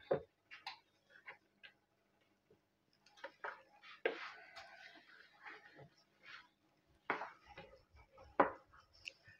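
Silicone spatula folding thick cake batter in a plastic mixing bowl: quiet, irregular scrapes and soft squelches of the blade against the bowl.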